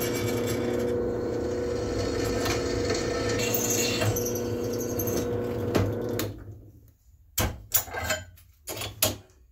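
Benchtop drill press running and drilling a hole through a small clamped piece of steel: a steady motor hum with the bit cutting. It stops about six seconds in and spins down, followed by several sharp knocks.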